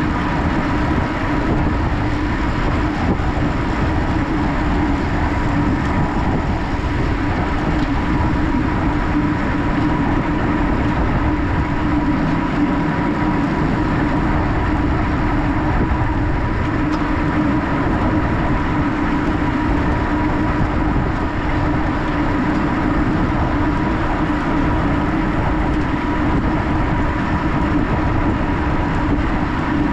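Steady rush of wind on a road bike rider's camera microphone, with the tyres rolling on pavement at race speed and a steady hum under it.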